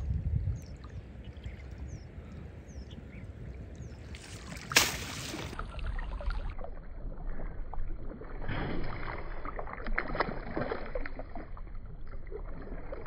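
Lake water splashing and sloshing around a person wading chest-deep, with one loud splash about five seconds in.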